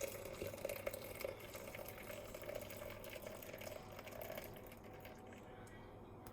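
Just-boiled water poured from a kettle into a container, a steady pour that tapers off and stops about four and a half seconds in.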